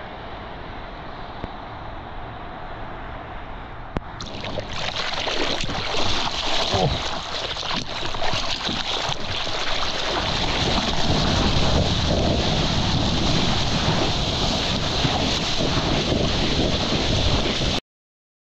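Water rushing and splashing past a surfboard, with wind noise on an action camera's microphone held just above the water. It gets louder about four seconds in and is loudest and steady in the second half, then cuts off abruptly near the end.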